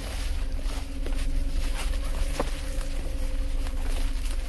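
Footsteps and brushing through tall weeds, a few faint scattered snaps, over a steady low rumble on the microphone.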